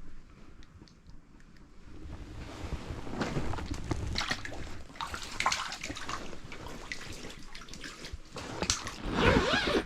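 Water sloshing and splashing in an ice-fishing hole, with irregular clicks and knocks that get busier from about two seconds in.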